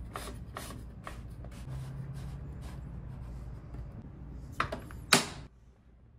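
Light clicks and two sharp plastic-and-metal clacks, about four and a half and five seconds in, as a DeWalt jobsite table saw's rip-fence lock lever and controls are handled, over a low steady hum.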